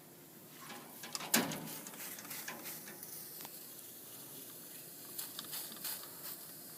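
Faint fizzing crackle of leak-detection soap solution bubbling on a heat pump's refrigerant line, the sign of a refrigerant leak at the reversing valve's bypass tube. One sharp click comes about a second and a half in.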